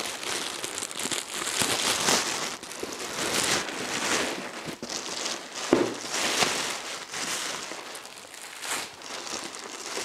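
Plastic packaging and reflective foil bubble insulation crinkling and rustling as a garage door insulation kit is torn open and the foil sheets are pulled out. One sharp knock stands out a little before the middle.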